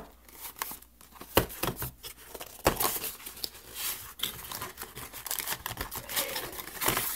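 Cardboard packaging being handled: a stiff inner tray and box pieces lifted out and set down, giving irregular scraping, rustling and light knocks.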